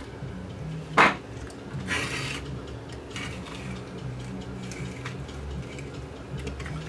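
Workbench handling noise: a sharp clack about a second in, then a short scrape and several lighter knocks and ticks as a TV chassis circuit board and a pair of pliers are set down on the bench.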